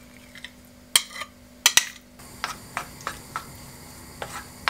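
A glass container knocks twice against a frying pan as egg-coated rice is tipped out of it. Then a wooden spatula stirs and scrapes the rice in the hot, buttered nonstick pan, with light ticks over a soft sizzle.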